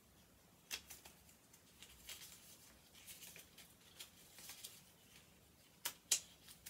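Paper pages of a small stapled flip book being flicked and handled: faint rustling and light flicks, with two sharper paper snaps near the end.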